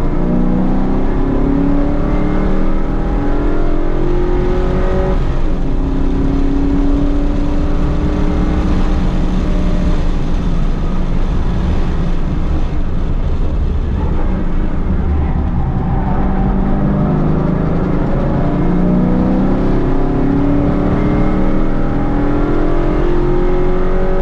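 Holden Commodore VE SS Ute's V8 engine under hard acceleration on a racetrack, its pitch climbing through the revs. It eases off around the middle, then climbs again near the end.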